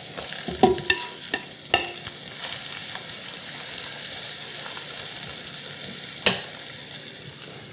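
Fried eggs sizzling steadily in oil in a ceramic nonstick electric skillet, with a few sharp ticks, most in the first two seconds and one about six seconds in, as a silicone spatula slides the eggs around the pan.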